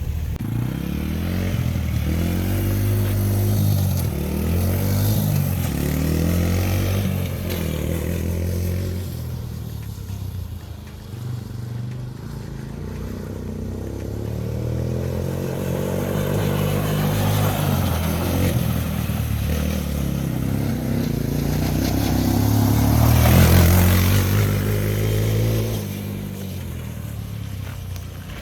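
Vehicle engine running, its pitch rising and falling repeatedly as it speeds up and slows, loudest a little over twenty seconds in.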